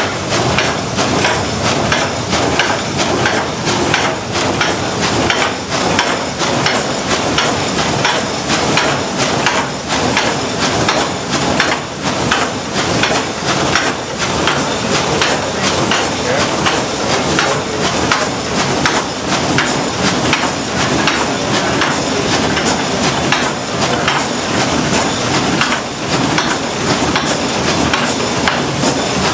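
Reciprocating frame sawmill running: the blade strokes up and down through a log while the ratchet feed gear advances it each stroke, giving a continuous mechanical clatter of closely repeated knocks.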